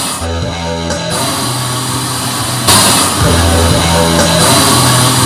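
Rock music with guitar and drums, loud and steady, with held low notes changing every second or so and a louder entry about two and a half seconds in.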